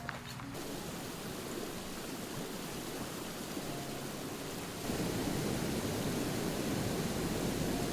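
Steady rush of flowing water, a stream or waterfall, which gets louder about five seconds in.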